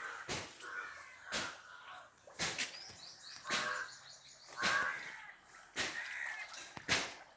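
Harsh bird calls repeating about once a second, with smaller birds chirping in between.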